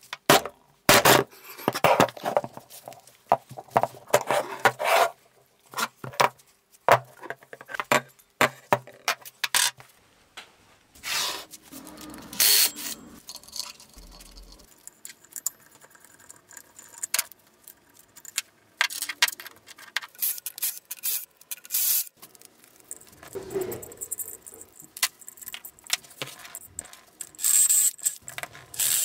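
Metal parts and hand tools handled on a wooden workbench while an old drill press is stripped down: a run of clinks, knocks and scrapes from the steel quill and the old electric motor. Near the end comes a brief high-pitched burst from a cordless impact driver on the motor's end cover.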